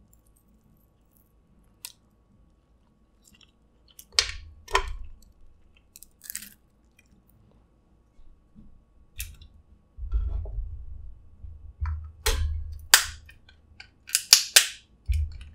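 Snow crab shells cracking and snapping by hand, with close-up chewing and handling noise. After a few quiet seconds come scattered sharp snaps, and a quick run of them near the end.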